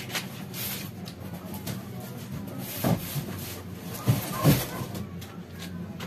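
Cardboard packaging of a washing machine being handled and pulled away, rustling and scraping, with three dull knocks around three, four and four and a half seconds in, the last the loudest. A steady low hum runs underneath.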